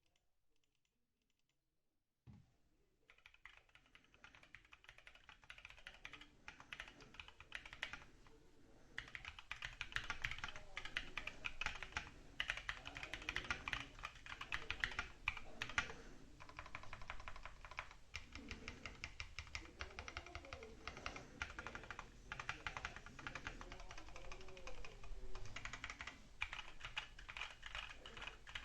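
A Tofu60 mechanical keyboard with unlubed NovelKeys Kailh Cream linear switches, a brass plate and PBT keycaps being typed on continuously. The typing starts about two seconds in and gets faster and louder at around nine seconds, with a few brief pauses.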